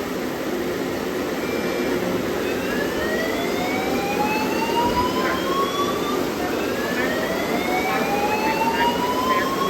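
Water from a burst fire-suppression pipe gushing in a steady roar, with a slow alarm tone rising in pitch twice.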